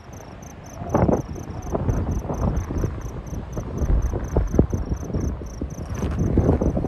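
Wind buffeting the microphone as a low, uneven rumble, with scattered footsteps on a dirt trail, the strongest about a second in. A faint, high, evenly pulsed chirping repeats about four times a second throughout.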